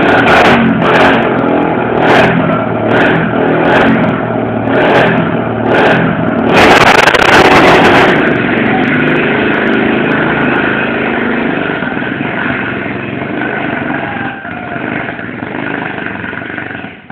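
Two small ATV engines, a 70 cc and a 250 cc, running hard under load as they pull against each other in a tug of war. Sharp clicks come roughly once a second for the first six seconds, and a loud hissing burst follows at about seven seconds in.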